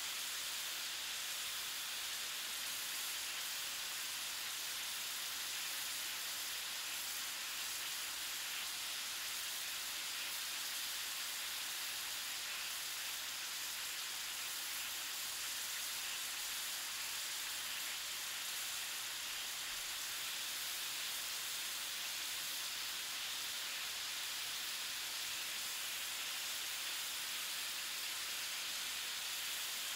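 Food sizzling on a hot stove: a steady, even sizzle with no breaks.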